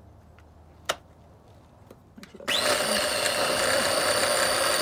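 Single-serve personal blender, its cup pressed down onto the motor base, starting abruptly about halfway through and running at a steady whine while it blends ice cream, sake and juice into a milkshake. A single click comes about a second in.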